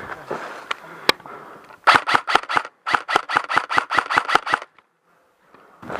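Airsoft electric rifle firing a rapid string of shots, about seven a second. There is a brief break after the first few shots, then the firing stops suddenly.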